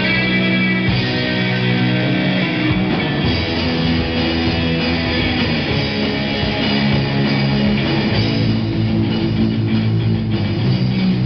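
Live rock band playing amplified: electric guitars holding chords over a bass guitar, with the drum kit coming in more fully about three seconds in.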